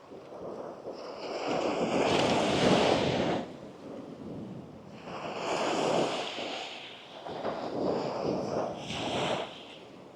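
Small waves breaking and washing up a sandy beach: three swells of surf a few seconds apart, each rising to a hiss and fading.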